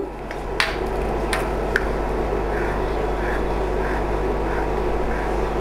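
A silicone spatula stirring thick custard and vermicelli in a nonstick pot: a few light knocks against the pot in the first two seconds, then soft swishing strokes about every 0.7 s. Under it runs a steady hum and hiss.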